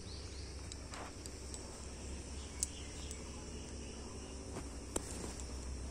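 Faint, steady high-pitched insect chirring, with two brief clicks about two and a half and five seconds in.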